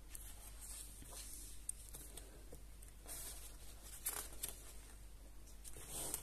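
Paper pages of a large softcover colouring book being turned by hand: faint rustles with several soft swishes as the pages lift and fall.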